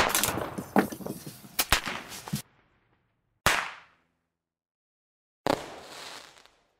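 Fireworks going off: a quick run of cracks and pops for the first couple of seconds, then two single bangs, each followed by a fading crackle.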